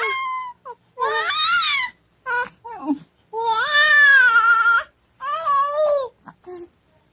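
A young child making high-pitched, cry-like wailing sounds as a funny voice, in a string of about seven calls with short breaks, the longest and loudest a drawn-out wail about three and a half seconds in.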